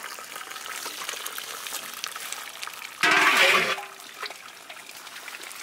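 Hot starchy cooking water from boiled rice draining through a plastic colander with a steady trickle, and a louder splash about three seconds in as more rice and water are poured in from the pot.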